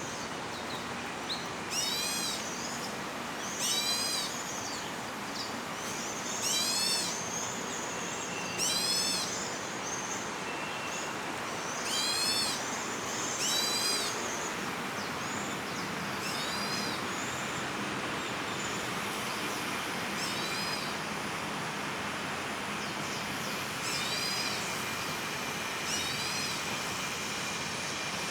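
Birds' alarm calls at a hawk: short bursts of quick rising-and-falling high notes about every two seconds, louder in the first half and fainter later. A steady hum of distant city traffic lies under them.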